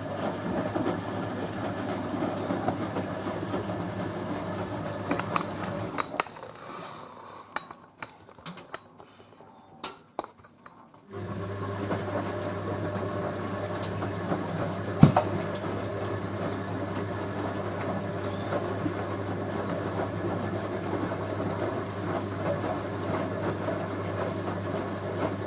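Hoover A3060 washing machine in its rinse, water churning with the motor running, which stops about six seconds in, leaving a few clicks. About eleven seconds in a steady low hum starts suddenly, the drain pump emptying the rinse water ahead of the intermediate spin.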